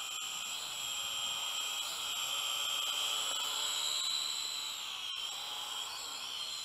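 Syma X5UW toy quadcopter's brushed motors and propellers whining steadily in flight, the pitch drifting up and down a little with throttle. A brief click about five seconds in.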